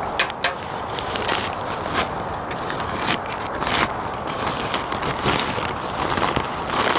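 Rustling and light clicks and knocks of a food bag being opened and unpacked, over a steady background hiss.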